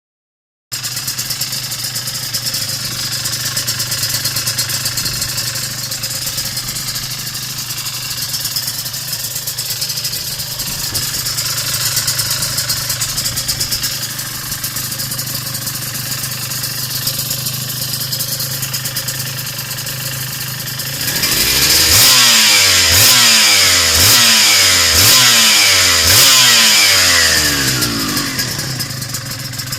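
Aprilia RS250's two-stroke V-twin, fitted with Giannelli expansion chambers and silencers, idling steadily, then revved in about six quick throttle blips, each rising and falling in pitch, before settling back to idle near the end.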